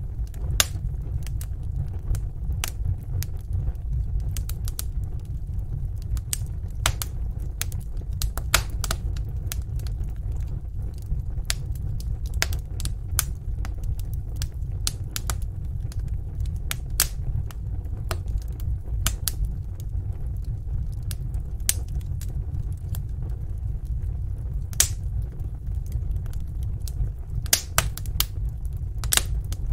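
Wood fire burning in a fireplace: irregular sharp pops and crackles over a steady low rumble of the flames.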